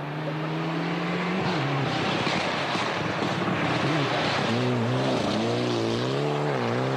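Mitsubishi Lancer Evolution rally car's turbocharged four-cylinder engine driven hard on a snowy stage, with a constant hiss of tyres and thrown snow. The engine note drops about a second and a half in, then rises and falls repeatedly in the second half as the driver works the throttle.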